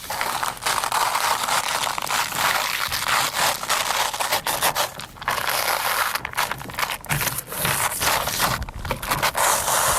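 Adhesive-backed protective film crackling and scraping as it is unrolled and pressed onto a vehicle's body, a continuous dense crackle with many small sharp snaps.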